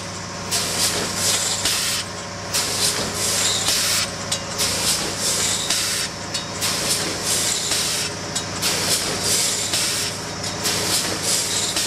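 Multihead weighing and vertical bagging machine for screws running under a steady hum, with quick hissing bursts that repeat in a cycle of about two seconds, each cycle ending in a brief lull.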